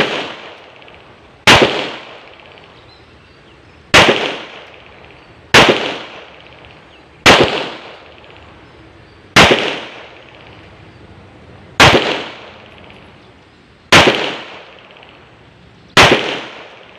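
A 9 mm Rock Island Armory Tac Ultra pistol firing eight single shots at an uneven slow pace, about two seconds apart, each followed by a short reverberating tail.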